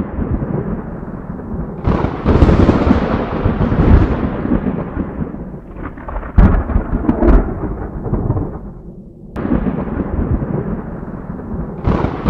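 Thunder rolling and rumbling in a thunderstorm, with four fresh claps: about two seconds in, near the middle, about three-quarters through and near the end. Each clap breaks suddenly and then rumbles off over a few seconds.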